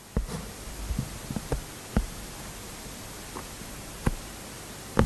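A few soft, scattered clicks and taps at irregular intervals over a low, steady background.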